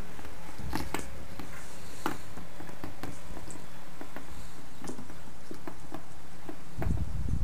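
Pond slider turtles' claws clicking and scraping irregularly as they crawl over tiles in a dry plastic tub, with a few dull low thumps near the end.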